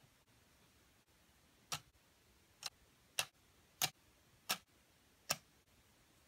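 Six light, sharp clicks, one after another, as tiny toy pudding pieces are pressed into the cups of a miniature six-cup baking tray.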